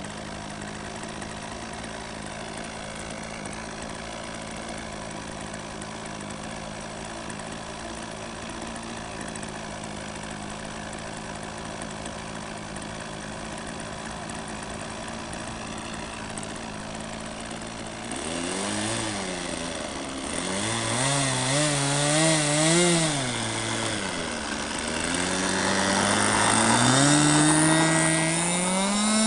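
Model airplane's .46-size glow engine, idling steadily at first. About two-thirds of the way in it is revved up and down several times, then it climbs to full throttle near the end as the plane starts its takeoff run.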